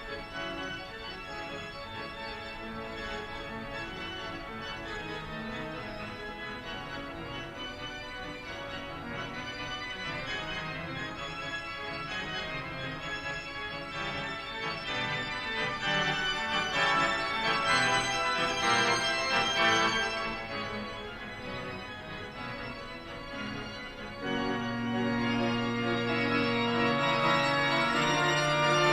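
Organ music with sustained chords that change every few seconds, swelling in the middle and growing louder with long held notes near the end.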